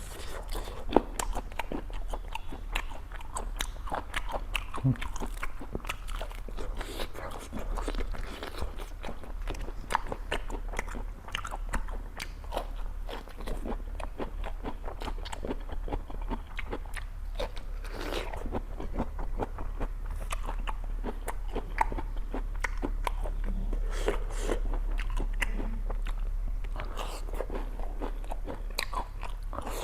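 Close-up biting and chewing of crunchy food, with dense, irregular crunches and crackles, over a steady low hum.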